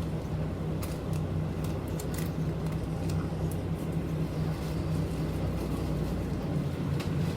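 Inside a city bus under way: the engine's steady low drone and road noise, with small rattles and clicks from the cabin scattered throughout.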